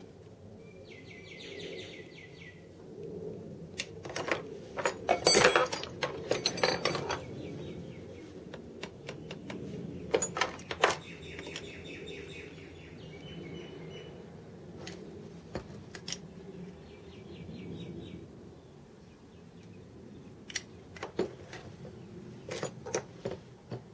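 Intermittent clatter and knocks of metal parts and hand tools being handled on a workbench, loudest in a burst about five seconds in. Birds chirp in short rapid trills in the background.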